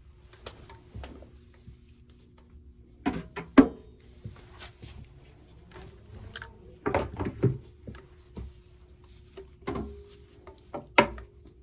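Scattered knocks, clicks and rubbing of objects being handled in a small room, over a faint steady hum.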